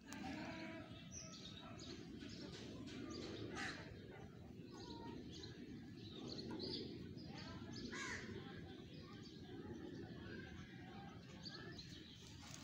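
Small birds chirping, with many short high calls scattered throughout, over a steady low background rumble.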